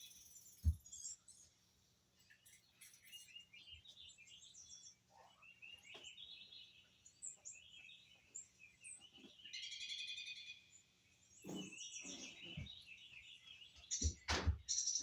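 Small birds chirping and twittering in short, high calls throughout, with a few dull thumps, the loudest about a second in and near the end.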